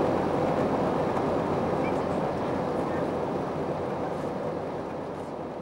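Steady in-flight cabin noise of an Airbus A321neo, heard from a window seat over the wing, with a steady droning tone through the rush of engine and airflow. It slowly fades out.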